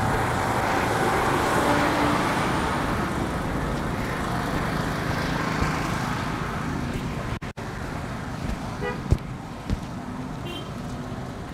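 Road traffic in a slow jam: a steady rumble of car engines with road noise.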